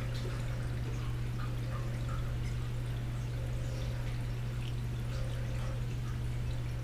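Reef aquarium running: a steady low pump hum with water trickling and dripping.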